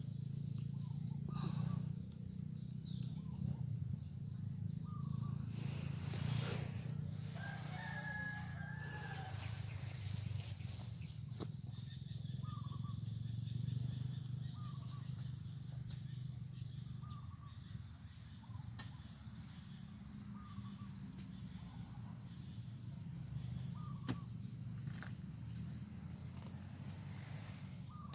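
A rooster crowing once, about eight seconds in, over a steady low rumble, with short high chirps repeating every second or two.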